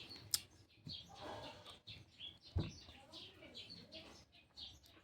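Faint close-up eating sounds: wet chewing with small mouth clicks and smacks, and one sharper thump about two and a half seconds in.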